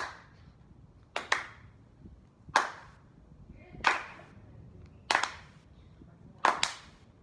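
A few people clapping their hands together in unison in a slow, steady beat, about one clap every second and a quarter, some of them doubled.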